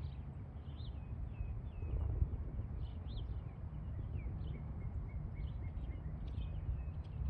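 Small birds chirping in many quick, short calls over a steady low rumble, with one brief louder burst about two seconds in.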